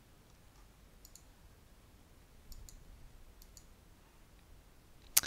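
Faint computer mouse clicks: a few scattered clicks, some in quick pairs, then one louder click near the end.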